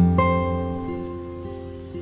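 Background music on a plucked guitar: a chord struck at the start, then notes that ring and slowly fade.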